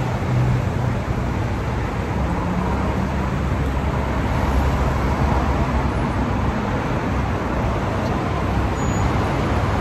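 Steady road noise of a vehicle on the move: a low engine and tyre rumble under a broad hiss.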